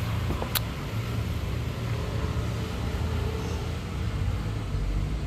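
Steady low rumble of a vehicle engine running out of sight, with a single sharp click about half a second in.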